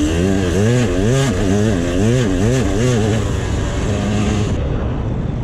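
KTM 200 XC-W two-stroke dirt bike engine riding, its revs rising and falling about twice a second for the first few seconds, then running steadier and lower near the end.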